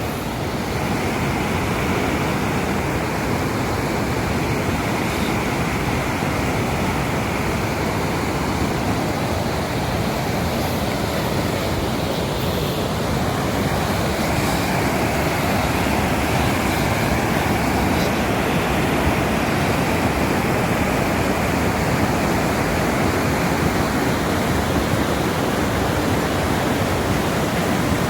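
Steady, loud rushing noise that holds unchanged throughout, with a fluttering low end.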